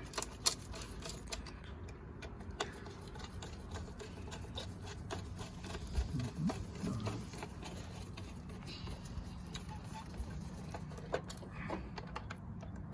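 Scattered light clicks and small knocks of a screwdriver and parts being handled while working on an electric chainsaw, over a steady low hum.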